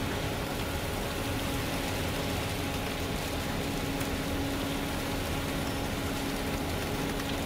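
Concrete vibrator running with a steady hum while it consolidates fresh concrete between and under buried conduits, working out air pockets, over a steady rushing background noise.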